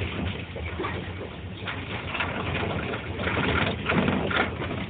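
Inside a moving Peugeot car: steady engine and road rumble in the cabin, with a few brief louder sounds between about three and four and a half seconds in.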